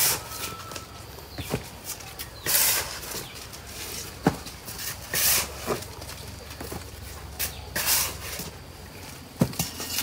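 A long-handled digging tool scraping and dragging soil, four strokes about two and a half seconds apart, with a few sharp knocks in between.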